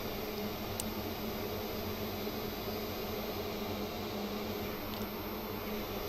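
Steady electric drone of running soldering rework equipment (the preheater and hot air station): a low hum with a fan-like hiss, with one faint tick about a second in.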